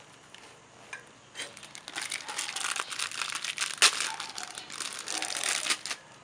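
Thin plastic parts bag crinkling as hands handle it and open it to take out new oil seals, with one sharper, louder crackle a little past halfway.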